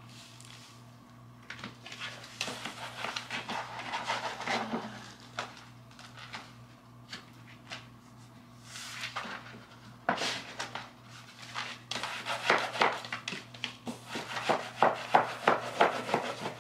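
Thin paper wallpaper rustling and crinkling as it is pressed by hand against a wall, then quick repeated scraping strokes of a flat smoothing tool pushing it flat, over a faint low hum.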